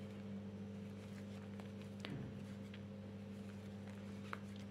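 Steady low hum with a few faint, soft clicks from a crochet hook and yarn being worked through stitches.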